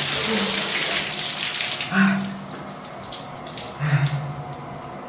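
Water tap running, the flow strong for about two seconds and then falling to a weaker run, with a few brief low tones: a poor supply in an apartment that has been without water for days.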